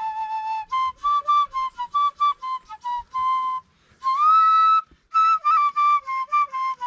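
Music: a solo flute playing a quick melody of short notes, with one longer note about two-thirds of the way in that slides up in pitch.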